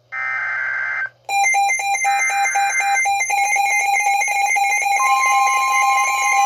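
Midland weather alert radios going off for a NOAA Weather Radio warning. A one-second digital SAME header burst is followed about a second in by the radios' alarms breaking in with loud, rapid pulsed electronic beeping, with another header burst underneath. The steady 1050 Hz warning alarm tone joins about five seconds in.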